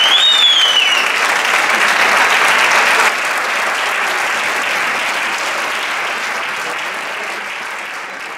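Theatre audience applauding, with a high whistle that rises and falls over it in the first second. The clapping drops a step about three seconds in and then fades away.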